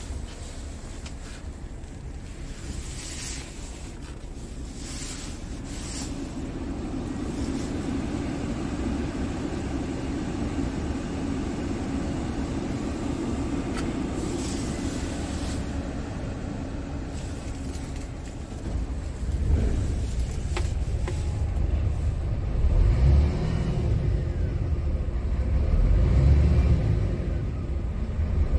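Scania R tractor unit's diesel engine running at a standstill, heard from inside the cab as a steady low hum. About two-thirds of the way through it grows louder, with a few low surges a few seconds apart.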